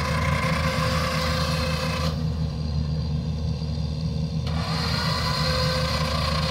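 Engine of a tracked carrier loaded with a Kubota combine harvester, running steadily. Its higher-pitched mechanical noise cuts out for about two seconds just after the start and then comes back, while the low engine note carries on unchanged.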